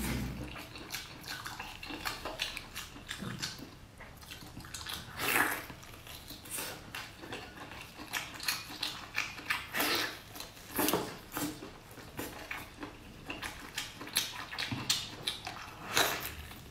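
Close-up wet eating sounds: chewing, sucking and lip-smacking as a person bites and tears at saucy braised pork, in irregular smacks and squelches.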